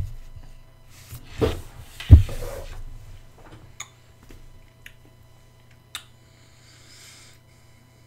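Movement noise at a desk: two dull thumps about one and a half and two seconds in, the second the loudest, then a few light clicks and a soft rubbing as arms and hands move.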